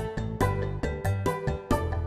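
Background music: a quick run of crisp, quickly fading pitched notes over a bass line.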